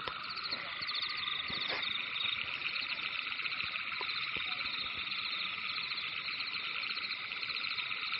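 A dense, steady chorus of high, rapidly pulsing trills from many calling animals, frogs or insects.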